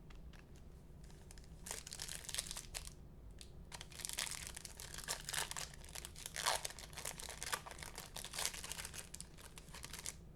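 A foil trading-card pack wrapper being torn open and crinkled. The rustling starts about two seconds in and goes on in irregular, uneven crackles.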